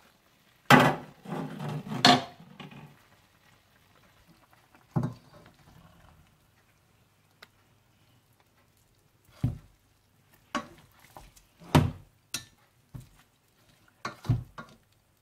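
Metal utensils clanking and scraping against a large cooking pot as a marinated mutton leg is turned over. The loudest clatter comes about a second in, followed by separate knocks spread through the rest.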